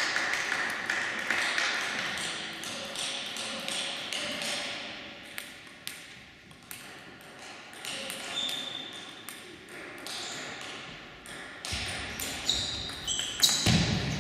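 Table tennis ball clicking against table and bats, the sharp hits ringing in a large echoing hall, picking up into a quick run of hits as a rally starts near the end.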